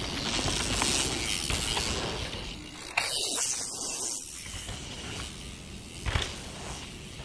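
Mountain bike tyres rolling and skidding over a loose dirt trail, a noisy crunch, with sharper hits about three seconds in and again about six seconds in.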